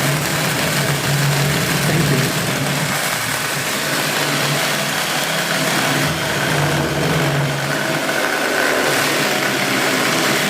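Electric drill driving a mini chainsaw attachment, its chain cutting steadily through a thick wooden plank: a continuous motor hum under the rasp of the chain in the wood.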